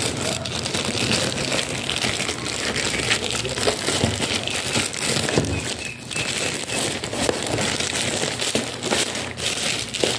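Plastic courier mailer bag crinkling and crackling as it is crumpled and pulled open by hand, with many short irregular crackles throughout.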